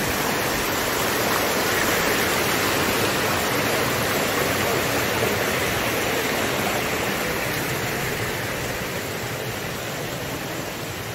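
Shallow rocky stream rushing over stones, a steady rush of water that slowly grows fainter over the second half as it is left behind.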